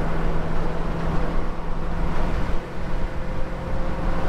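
Holden HK's engine and exhaust droning steadily while the car is driven, heard from inside the cabin along with road and wind noise.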